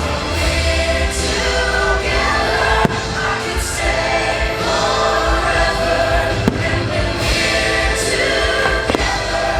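Christmas fireworks show soundtrack: music with a choir singing, broken by a few sharp firework bangs.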